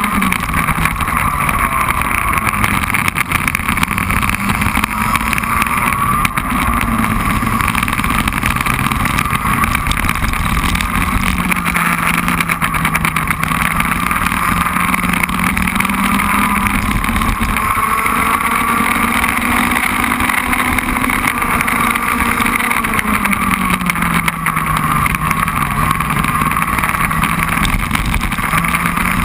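Racing kart engine running at speed, heard from on board, its pitch rising and falling several times as the kart accelerates out of corners and slows into the next.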